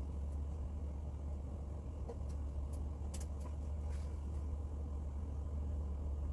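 A steady low background hum, with a few light clicks and taps from plastic toy wrestling ring parts being handled and fitted.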